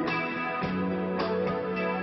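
Rock band playing an instrumental passage of a ballad without vocals, guitar to the fore, with a new chord struck about every half second.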